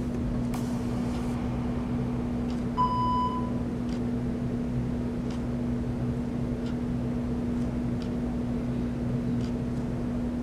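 Steady low electrical-sounding hum with a single short electronic beep about three seconds in, from the workout's interval timer. A few faint taps come at intervals of about a second and a half.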